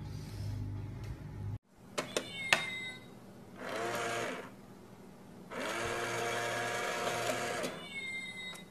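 The small electric motor of a toy 'stealing cat' coin bank whirring in two runs, one of about a second as its lid opens and a longer one of about two seconds. A few sharp clicks come just before.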